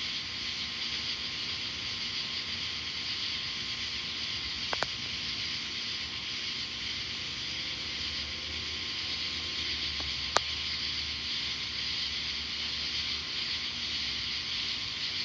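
Steady hissing night ambience of a thunderstorm. A faint low rumble of distant thunder swells past the middle, and two short clicks come about five and ten seconds in.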